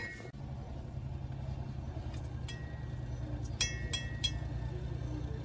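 Steady low motor drone, with sharp ringing metallic clinks of metal parts or tools: one about halfway through and three more in quick succession a little later.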